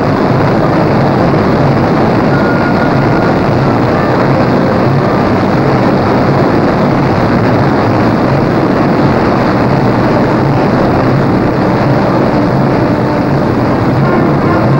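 Boeing 377 Stratocruiser's Pratt & Whitney R-4360 Wasp Major radial piston engines running steadily on the ground, a loud even noise, as the engines are started and warmed up.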